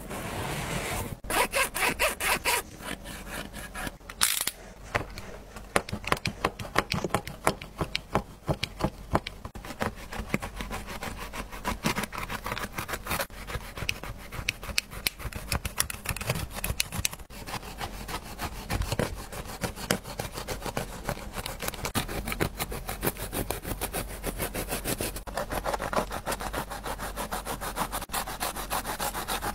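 A small blade sawing and scraping through a sneaker's knit upper along the sole seam, in quick scratchy strokes, several a second, that go on without a break.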